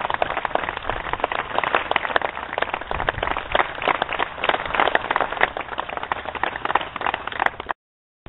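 Crowd applauding, a dense patter of clapping that cuts off suddenly near the end.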